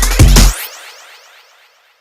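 Electronic background music with heavy bass and drum hits that stops abruptly about half a second in, leaving a fading echo tail that dies away to silence.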